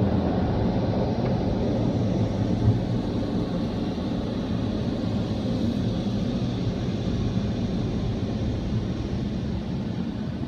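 Istobal rollover car wash running, heard from inside the car's cabin: the rotating brushes scrubbing over the bodywork make a steady low rumble, which eases off a little towards the end.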